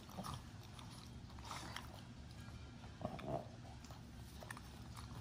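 A Boston terrier gnawing and chewing a dried lamb ear with the fur on: faint crunching and scattered small clicks of teeth, with a short louder sound about three seconds in.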